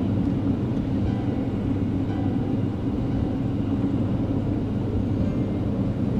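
Moving train heard from inside a carriage: a steady low rumble of wheels running on the track.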